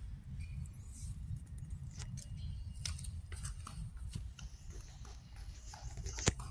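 Phone handling noise: scattered light clicks and taps over a steady low rumble, with one sharper knock near the end as the phone is swung away.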